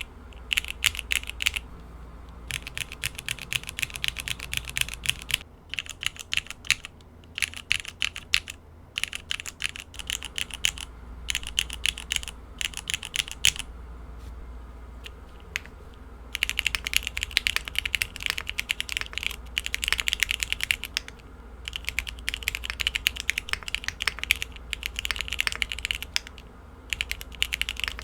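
Typing on 65% mechanical keyboards with Cherry MX1A Black linear switches, lubed with Krytox 105/205: quick runs of keystrokes broken by short pauses, the longest about fourteen seconds in.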